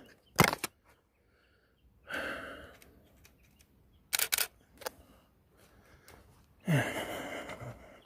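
Camera shutter sounds being taken at a railway level crossing: a sharp click, then a short noisy shutter sound, then a quick cluster of clicks a couple of seconds later.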